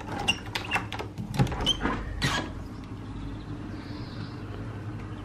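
A key turning in a door lock, with the keys on the ring jangling, then the door being opened: a run of clicks and knocks over the first couple of seconds. After that, only a steady low hum.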